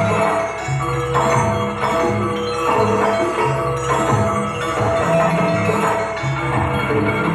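Music accompanying a dance performance, with percussion and a repeated run of low notes keeping a steady beat.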